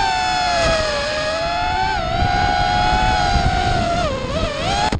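FPV racing quadcopter's brushless motors and propellers giving a loud, high-pitched whine, the pitch rising and falling with throttle and dipping sharply twice, about two seconds in and again near the end.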